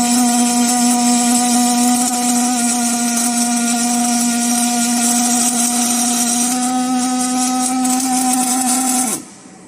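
Automatic circumferential seam welding machine running: a steady, loud hum with overtones and a high hiss, which cuts off sharply about nine seconds in.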